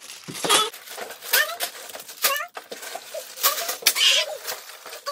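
Fast-forwarded voices, sped up into high-pitched chattering, mixed with the crinkle of plastic LEGO parts bags being handled.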